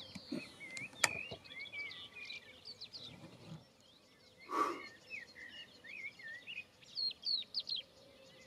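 Small birds chirping and singing, with two sharp clicks near the start, the louder one about a second in.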